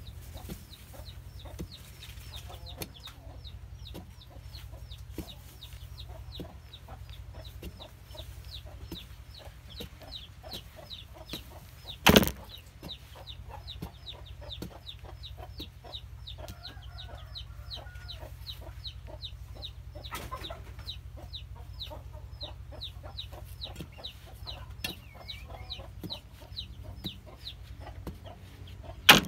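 Chickens clucking and peeping, a short high chirp repeated about twice a second, with the scrape and light ticks of a steel digging bar working soil. Two sharp loud knocks stand out, about twelve seconds in and at the very end.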